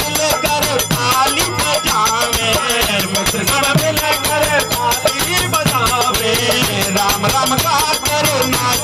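Indian devotional folk music in the style of a badhai song: a fast, even shaker and rattle rhythm runs under a wavering melody line.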